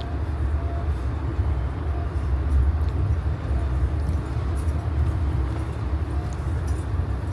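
Amtrak passenger train in motion, heard from inside the coach: a steady low rumble with a hiss of wheel and track noise.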